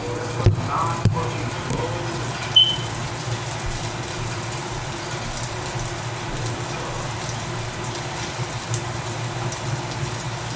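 Steady kitchen background hum with a few knocks of dishes or utensils in the first second or so and a single bright clink about two and a half seconds in.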